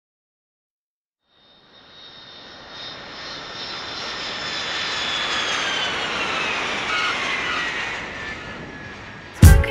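An aircraft passing overhead: a rushing engine noise swells over a few seconds, with a whine gliding down in pitch as it goes by, then fades. Near the end, loud music with heavy drum hits cuts in.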